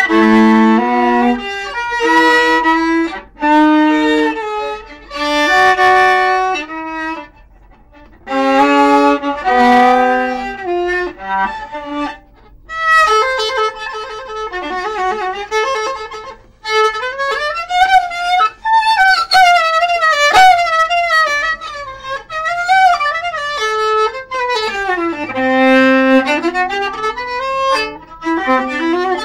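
Solo viola played with the bow. The first half is short phrases of held notes broken by brief pauses; the second half is an unbroken line with heavy vibrato and pitches that slide, including a long downward slide and a climb back up near the end.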